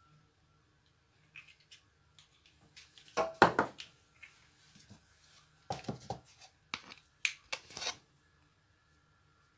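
Seasoning shakers shaken over a glass bowl of raw chicken wings: short bursts of quick rattling and tapping. The loudest burst comes about three seconds in, and a few more follow between about six and eight seconds.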